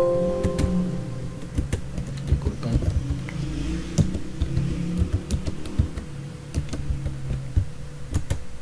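Computer keyboard being typed on: irregular runs of key clicks while an IP address is entered.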